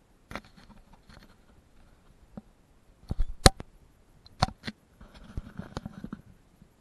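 Close handling noise as the camera is turned: a scatter of small clicks, taps and knocks, the sharpest about halfway through, with a rustling scrape near the end.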